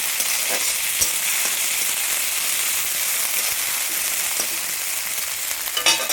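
Oil sizzling steadily in a pan as food fries, with a few light knocks from a stirring spoon and a brief scraping stir near the end.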